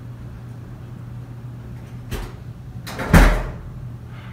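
A door being opened and slammed shut: a short click, then about a second later a heavy slam that rings briefly.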